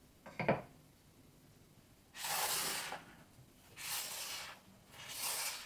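Wooden marble-run blocks: a single wooden knock as a ramp piece is set down on a wooden pillar, followed by three short hissing swishes, each under a second and about a second and a half apart.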